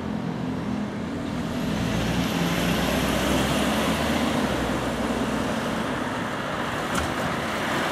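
Electric train running slowly: a steady rolling rumble with a low hum that grows louder about two seconds in, and one sharp click near the end.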